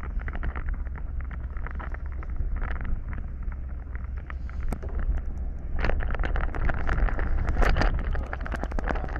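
Wind buffeting the microphone aboard a boat: a steady low rumble with scattered crackles and knocks, getting louder and rougher about six seconds in.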